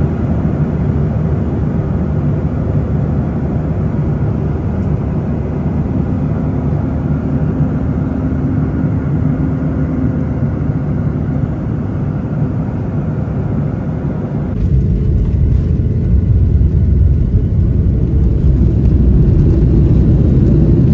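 Airliner cabin noise: a steady drone of engines and rushing air with faint humming tones. About fifteen seconds in it changes abruptly to a louder, deeper rumble.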